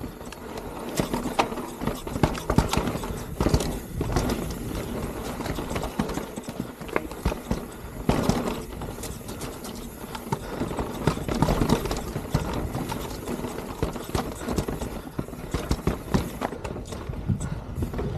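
Mountain bike descending a rough singletrack trail: tyres rumbling and the chain and frame clattering in dense, irregular knocks as the bike rolls over rocks and roots.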